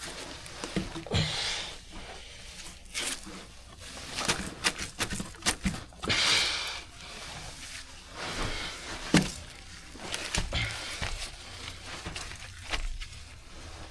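Scattered knocks, clicks and scraping rustles of hand work around the cast iron drain pipe, with a few louder scrapes and one sharp knock near the middle.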